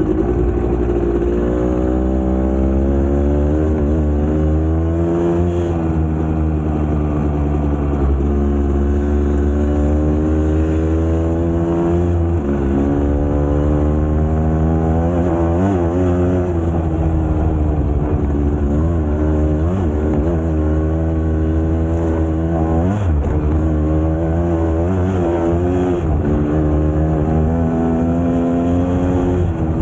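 GasGas two-stroke enduro motorcycle engine being ridden, its pitch climbing and dropping again and again as the throttle opens and closes. A steady low rumble runs underneath.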